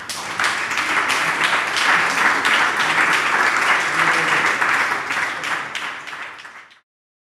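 Audience applauding: dense clapping that holds steady for about five seconds, then thins and cuts off abruptly near the end.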